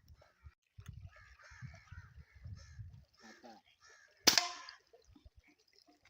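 Birds calling in chattering bursts, then about four seconds in a single sharp crack with a short ringing tail: a Gamo air rifle firing.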